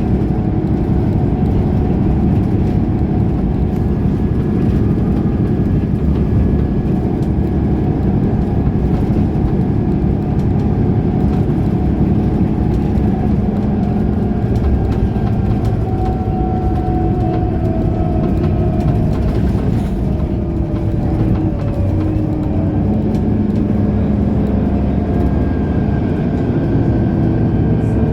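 Mercedes-Benz O530 Citaro Facelift Ü bus engine and drivetrain running under way: a steady low rumble with whining tones that slowly rise and fall in pitch as the bus speeds up and slows down.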